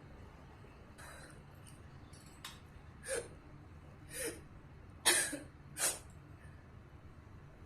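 A girl coughing and hiccuping: a run of short, sharp throat sounds about a second apart, two faint ones first, then four clear ones, the loudest two past the middle.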